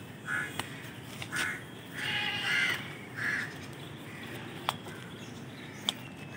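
Crows cawing, about five harsh caws in quick succession over the first few seconds. Two sharp clicks follow later.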